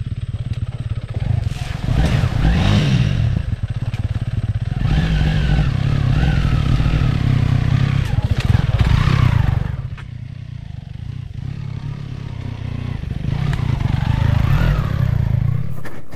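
Honda CRF300 Rally's single-cylinder engine revving up and down as the motorcycle is ridden slowly over a rough dirt trail, its revs rising and falling several times. It fades away near the end.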